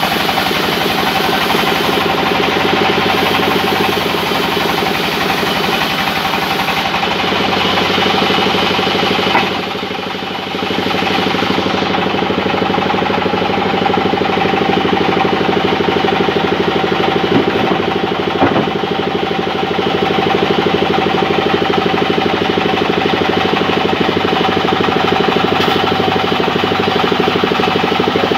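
Large belt-driven band sawmill running steadily as a log slab is fed through it: a continuous mechanical drone with a steady whine over it. The level dips briefly about ten seconds in, and a few sharp knocks come near the middle.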